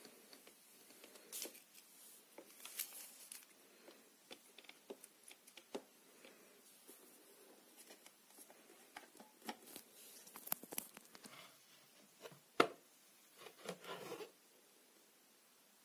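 Hands handling a Tesla RoboStar T60 robot vacuum's plastic body and brushes: scattered light taps, clicks and rubbing, with one sharper click late on followed by a brief rustle.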